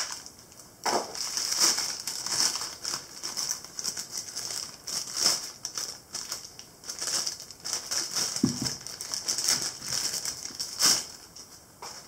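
Plastic wrapping crinkling in irregular rustles as a quick-change tool holder is unwrapped by hand.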